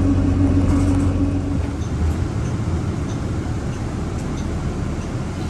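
Vehicle engine running with a steady low hum, which gives way about a second and a half in to a rougher low rumble.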